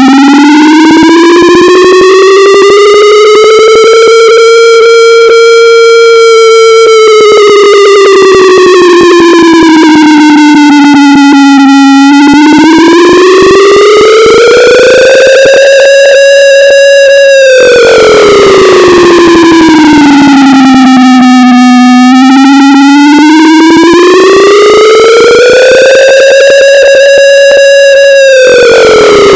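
Air raid siren wailing, pitched down and heavily distorted at full loudness: one deep tone that slowly rises and falls, each rise and fall taking about ten seconds. It peaks three times.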